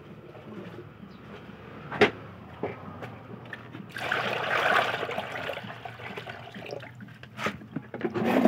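Water pouring and splashing into a basin for about two seconds, starting about four seconds in. A sharp knock comes about two seconds in, and a few lighter knocks near the end.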